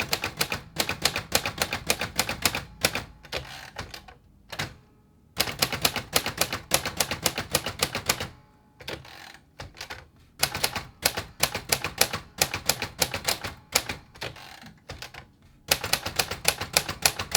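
Keys of a 1964 Royal Safari manual typewriter striking in quick runs of about five a second, broken by three short pauses.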